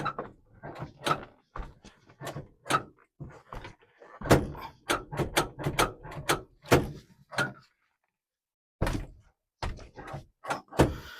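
Irregular knocks, bumps and scrapes inside an old truck's cab as a person clambers across to the other side, with a pause of a second or so about two-thirds of the way through.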